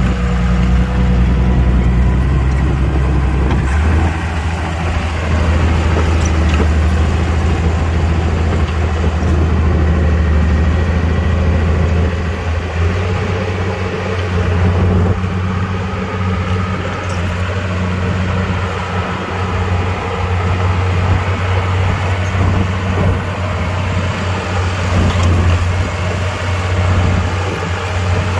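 Komatsu mini bulldozer's diesel engine running steadily, its note stepping up about four seconds in.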